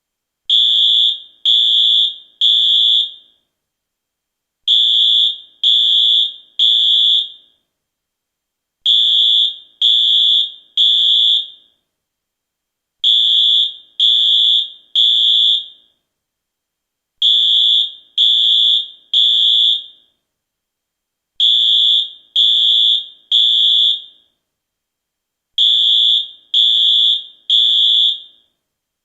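US fire alarm sounding the temporal-three evacuation signal: three loud, high-pitched beeps about a second apart, then a pause of about a second and a half, repeating seven times.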